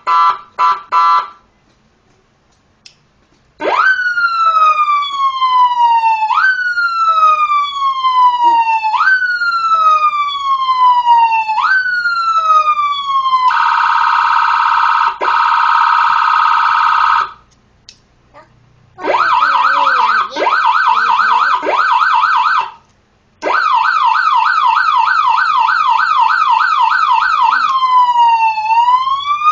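Electronic seven-tone siren module cycling through its tones: a few short chirps, then a tone that jumps up and falls away about every two and a half seconds, a steady tone, a fast yelp, and a slow rise-and-fall near the end, with short gaps between patterns.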